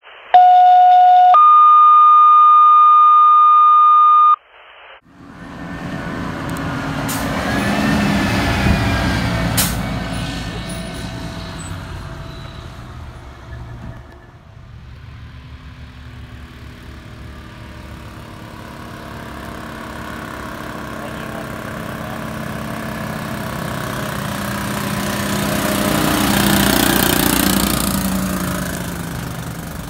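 A loud electronic intro tone: a short lower beep, then a longer higher one lasting about three seconds. Then the diesel engines of fire apparatus under way. A Seagrave fire engine pulls away, loudest about eight seconds in, and a rescue truck passes close by, swelling to its loudest near the end.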